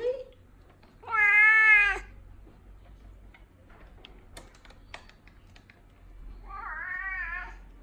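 Tonkinese cat meowing to beg for treats: one loud meow about a second long with a rising-then-falling pitch, then a quieter, wavering meow near the end.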